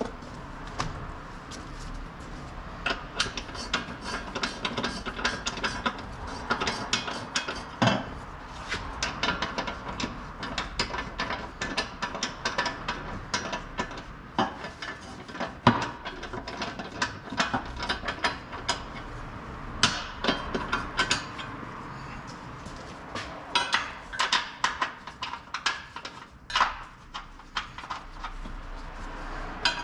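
Metal hand tools clinking, tapping and knocking on steel suspension parts and bolts in many irregular sharp clicks throughout.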